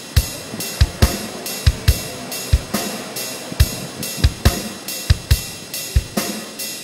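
Music with a steady drum-kit beat: low kick-drum thumps under quick, crisp hi-hat ticks.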